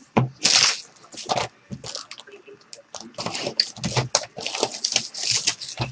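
Plastic shrink-wrap crinkling and tearing as a trading-card box is unwrapped by hand: irregular sharp crackles, a loud cluster about half a second in and dense crackling from about three seconds on.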